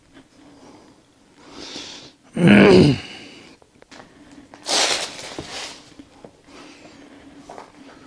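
A man's short wordless vocal sound with a falling pitch, then a couple of seconds later a loud, noisy breath or sniff.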